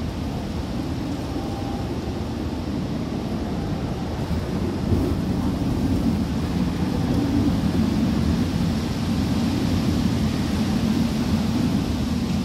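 Typhoon wind blowing hard and steadily with a low rumble, swelling louder about five seconds in.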